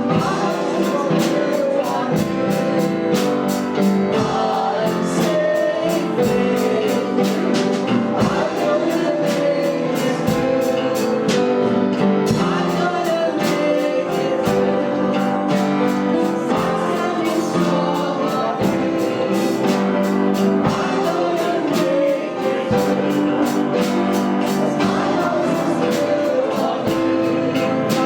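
Church worship music: singing with guitar and band accompaniment and a steady beat.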